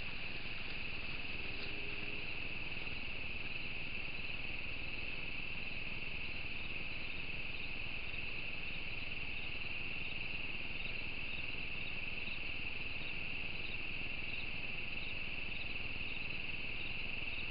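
Night chorus of crickets: a steady, unbroken trill with faint regular chirps above it.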